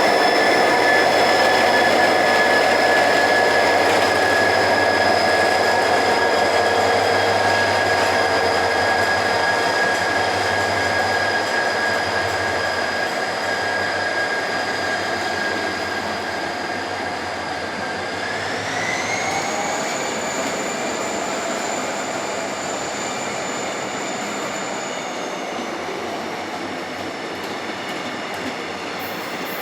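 EMD diesel locomotive pulling away: a steady engine rumble under high whining tones. The whine glides up in pitch about two-thirds of the way through and eases down again near the end, while the whole sound slowly fades as the train moves off.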